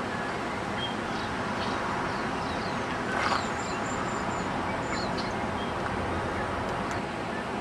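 Short bird calls and chirps scattered over a steady rushing background noise, with one louder, harsher call about three seconds in.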